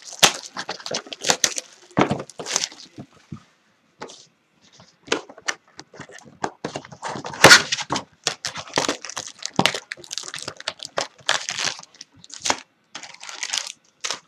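A hobby box of trading cards being opened and its foil packs handled: wrapping and cardboard crinkling, tearing and crackling in a busy run of sharp rustles, loudest about halfway through.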